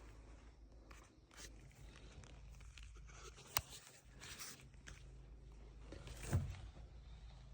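Faint rustling and shuffling of people moving about, with a sharp click about halfway through and a dull thump near the end.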